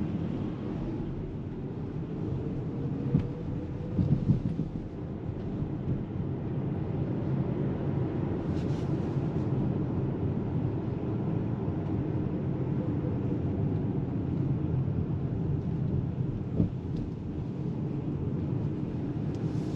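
Cabin noise of a Polestar 2 Long Range Dual Motor electric car on the move: steady road and tyre rumble, with a faint electric-motor whine that rises and then slowly falls. A few short thumps come around four seconds in.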